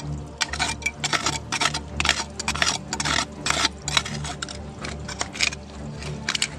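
A flat tool scraping and knocking over wet rock and gravel in shallow water: a quick irregular run of gritty scrapes and clicks, with a low steady beat of background music underneath.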